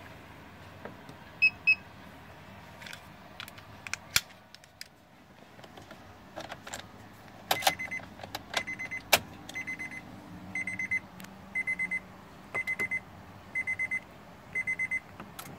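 Electronic beeping from the aftermarket RFID push-start system in a Honda Mobilio: two short beeps, then from the middle on, quick bursts of three or four high beeps, about one burst a second. Sharp plastic clicks come in between as the key tag and the start button are handled.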